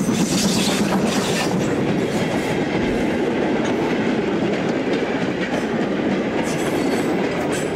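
Railway wagons rolling along the track, their wheels clattering over the rail joints in a steady run that eases off near the end.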